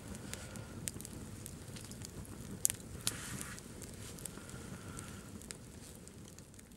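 Wood campfire burning, a steady low rush of flames with scattered sharp crackles and pops from the burning logs, the loudest pops a little under three seconds in; it slowly fades away near the end.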